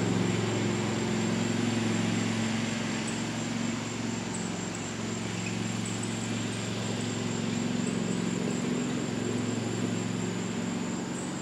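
1998 Scotts S2046 lawn tractor's engine running steadily while the tractor is driven across the lawn.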